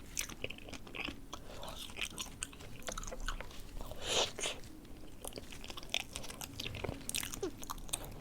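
Close-miked eating of a dessert: bites and chewing with crunchy crackles and wet mouth clicks, many short sharp sounds scattered throughout, the loudest about four seconds in.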